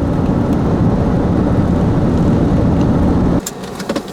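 Steady low road and engine rumble inside a moving car. It cuts off abruptly about three and a half seconds in, leaving a quieter background with scattered clicks.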